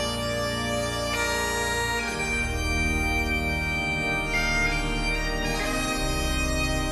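Bagpipes playing a slow tune in long held notes over their steady drones.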